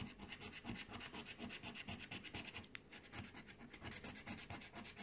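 A coin scratching the coating off a paper scratch-off lottery ticket in rapid back-and-forth strokes, about eight to ten a second.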